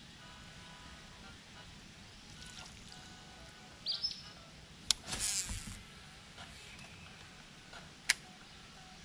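Quiet river ambience with faint bird calls. About five seconds in there is a sharp click followed by a brief rush of noise, and another sharp click comes near the end.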